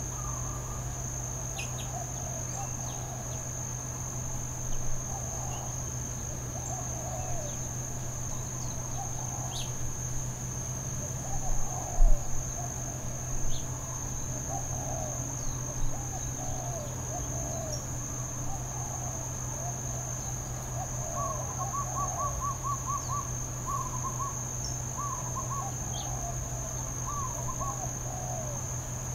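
Steady high-pitched insect chorus over a continual scatter of short calls in the distance, with a faster run of short chirps in the second half. A few sharper sounds stand out around the middle.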